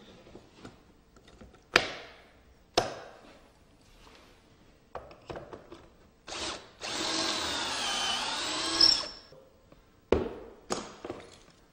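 Power drill boring a hole through a portable drilling jig into a wooden mantle shelf, running for about two seconds near the middle. Sharp knocks of wood and tools being handled come before and after it.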